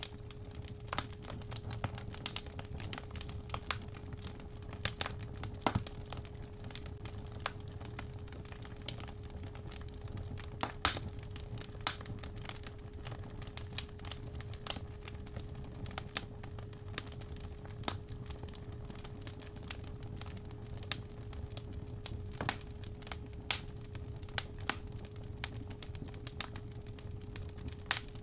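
Fireplace fire crackling and popping in irregular sharp snaps over a low rumble, with a steady 417 Hz sine tone held throughout.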